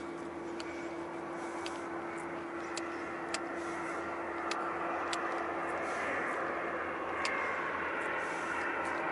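A steady engine drone with one held hum note, under wind and water noise that grows a little louder after about five seconds, with faint sharp ticks scattered through.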